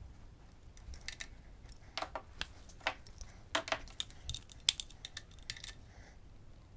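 Small metal tools and parts clicking and clinking against each other in irregular handling, with a dozen or so sharp clicks, a few ringing briefly.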